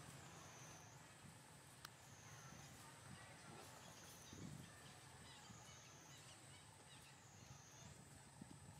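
Near silence: faint outdoor ambience, with a faint high thin tone that dips and recovers in pitch about every second and a half.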